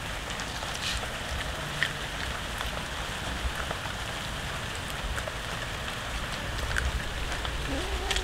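Cats chewing and crunching raw fish, a steady crackle of small wet ticks and clicks.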